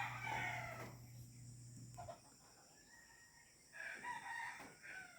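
Roosters crowing: one long crow trailing off about a second in, then another crow near the end.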